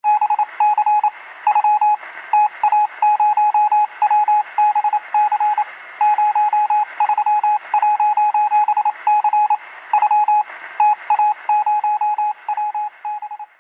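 Morse code: a single steady beeping tone keyed on and off in a fast run of short and long beeps, over a hiss of radio static.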